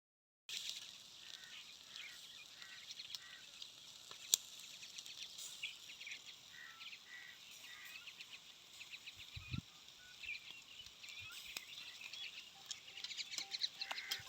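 Outdoor ambience with birds chirping in short, repeated calls over a faint hiss, a sharp click about four seconds in and a low thump about halfway through.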